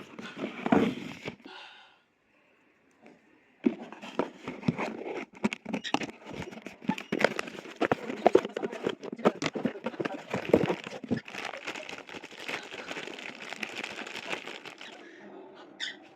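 Plastic being handled: continuous crinkling and rustling with many small clicks and knocks, typical of a replacement filter being unwrapped and tried for fit. It starts after a short near-silent pause a few seconds in and dies down near the end.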